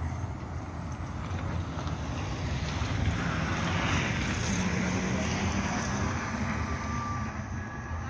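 Articulated city bus driving past close by, its running and tyre noise growing louder as it comes alongside about three seconds in, then easing off. Wind buffets the microphone throughout.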